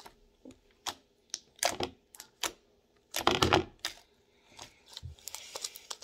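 Beaded clicky slime squeezed and kneaded by hand, giving scattered sharp clicks and crackles, with one longer, louder squelching burst about three seconds in.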